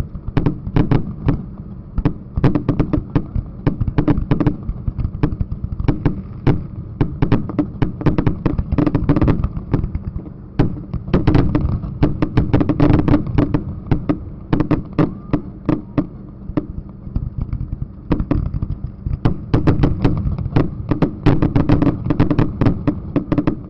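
Aerial fireworks shells bursting close overhead in a rapid, continuous barrage of sharp bangs and crackles, with short lulls now and then.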